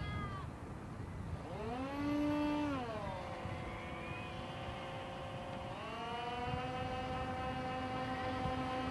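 Twin 70 mm electric ducted fans of a model F/A-18 jet whining as it taxis. They spool up about a second and a half in, drop back about three seconds in, then rise again near the six-second mark and hold. This is the weird sound blamed on the new 2500kv outrunner motor rubbing against its wire.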